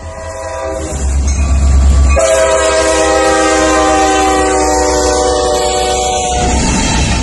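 Diesel locomotive's multi-chime air horn, faint at first, then one long loud blast from about two seconds in that slides slightly lower in pitch before stopping near the end. A low rumble from the passing train runs underneath.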